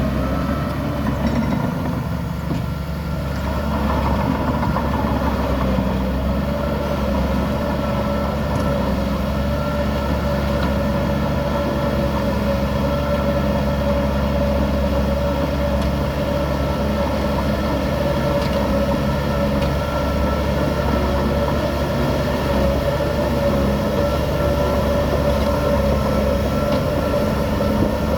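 Heavy diesel machinery running steadily: a deep engine drone with a steady higher whine above it.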